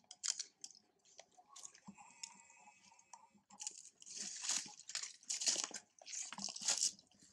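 Irregular dry crunching and rustling from long-tailed macaques moving and feeding among dry leaves on a tiled floor, louder and denser in the second half.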